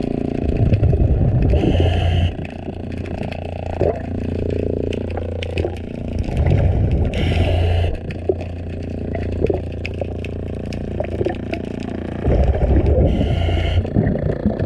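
Scuba diver breathing through a regulator underwater: three cycles about five to six seconds apart, each a burst of gurgling exhaust bubbles with a short hiss, over a steady low hum. Scattered clicks and scrapes come from cleaning growth off a boat hull.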